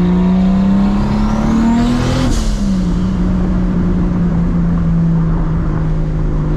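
Straight-piped, big-single-turbo 2JZ straight-six of a MKIV Toyota Supra, heard from inside the cabin, pulling briefly on light boost: the engine note climbs with a rising turbo whistle for about two seconds. At the peak the wastegates open with a short hissing rush, and the revs drop back to a steady cruise.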